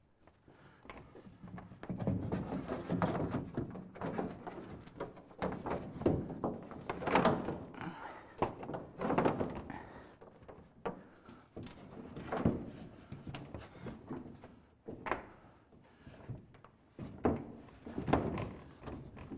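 Dust-cover panel being slid into place and laid down on the roof of a wooden sauna, making irregular scraping, knocks and thunks.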